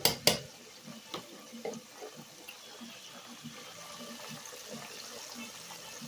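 Flour-coated buttermilk chicken deep-frying in hot vegetable oil in a pot, a steady bubbling sizzle with fine crackle. A couple of sharp knocks at the very start.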